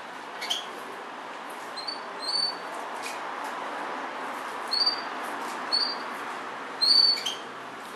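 Short high chirps, like a small bird's, in about five brief bursts a second or so apart, over a steady hiss.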